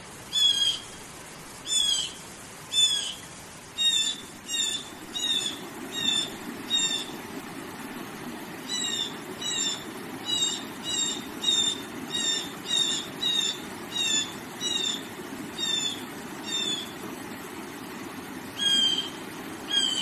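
A bird repeating the same short call over and over, about one to two calls a second in runs with two brief pauses. Under it runs a steady rush of flowing river water that grows stronger a few seconds in.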